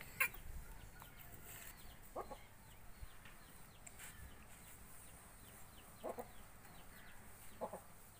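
Faint, short clucks of chickens, a few separate single clucks spread out, with a sharp click just after the start.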